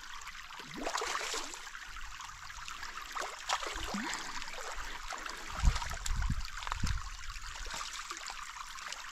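Creek water trickling steadily, with a few dull thumps a little past the middle as a small eel-tail catfish is hand-lined, splashing, into the shallows.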